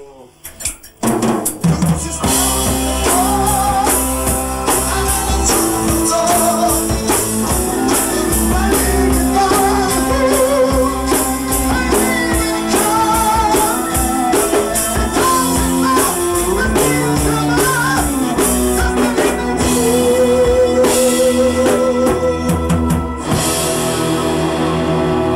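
A rock band playing a song together: drum kit, bass guitar, guitar and keyboard, with a man singing the lead. The band comes in about two seconds in, after a brief quiet moment.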